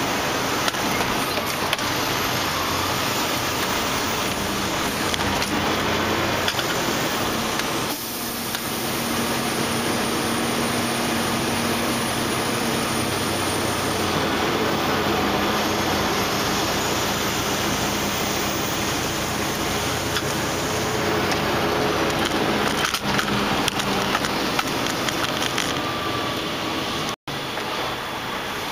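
Semi-truck cab noise while driving: a steady engine drone and road noise with scattered knocks and rattles over a bumpy road. The sound cuts out for a split second near the end.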